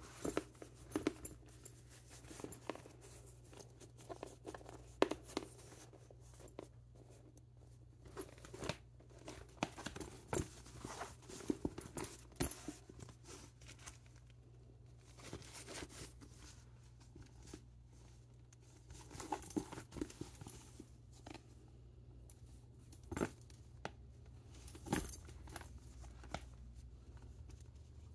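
Handling noise from a vintage Louis Vuitton Montsouris canvas-and-leather backpack being opened and felt through by hand: irregular rustles and scrapes of the canvas and leather with small clicks from the drawstring and metal hardware, quieting for a few seconds at a time.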